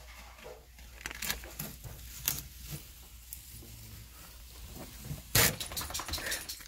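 Handling noises from a desktop PC tower being held and turned: scattered light knocks and rustles, with one louder short scrape or rustle about five and a half seconds in.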